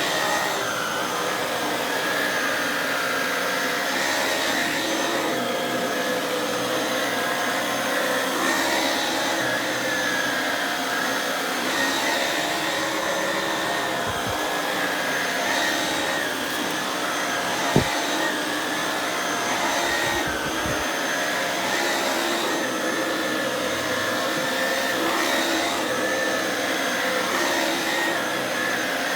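Shark DuoClean True Pet corded stick vacuum running steadily while being worked over carpet, its sound swelling and dipping every few seconds with the strokes. A single sharp click comes about 18 seconds in.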